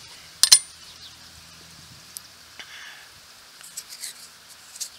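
Coins clinking as they are set down on the steel blade of a serrated digging tool: a sharp double click about half a second in, then a few faint clicks.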